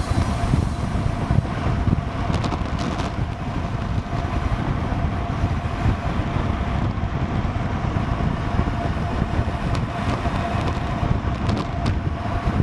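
Wind rushing over an action camera's microphone on a road bike descending at about 40 km/h, a dense rumbling noise that stays fairly even, with a few sharp clicks about two, ten and twelve seconds in.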